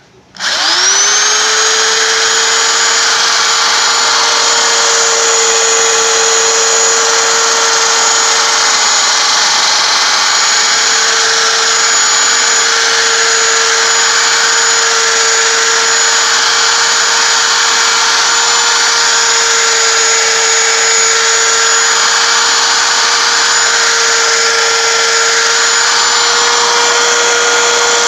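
Electric polishing tool, used for polishing aluminum, switching on about half a second in, spinning up quickly and then running at a steady high speed with a constant whine.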